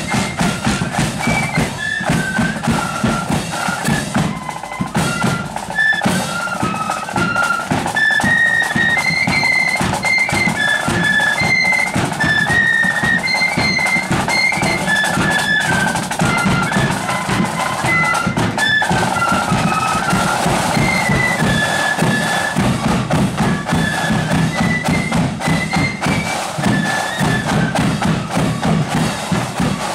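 Marching flute band playing a tune: massed flutes carry a high melody over a steady beat of bass and side drums.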